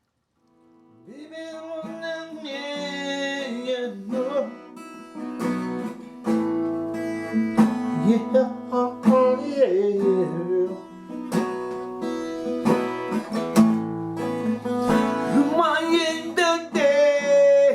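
Music: strummed and plucked acoustic guitar with a singing voice, starting about a second in.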